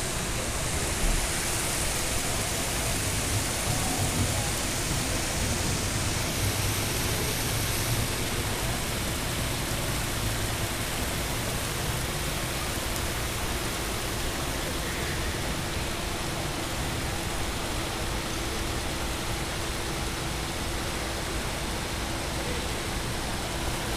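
Steady rushing noise of water with no break in it, and a faint steady hum joining about eight seconds in.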